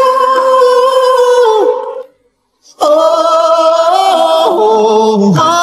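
Music: a singing voice holding long, wordless notes with small slides in pitch, stopping for under a second about two seconds in, then going on.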